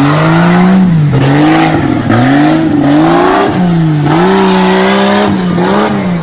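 An off-road vehicle's engine, loud and under hard throttle, revving up and dropping back several times in a row as the throttle is worked.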